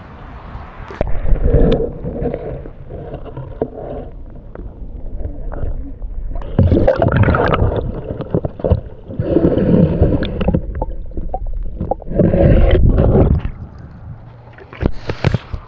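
Shallow canal water sloshing and gurgling around an action camera held at and below the surface, muffled while the camera is underwater, in several loud surges with a few sharp knocks near the end, as a large black drum is revived and released.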